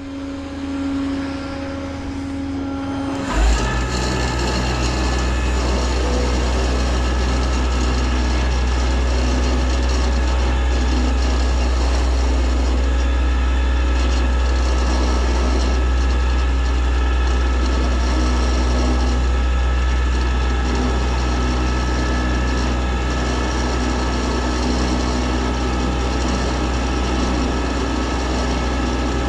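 A truck engine running steadily, stepping up about three seconds in to a louder, deep drone that holds, as when a service truck's PTO is engaged to drive its hydraulics.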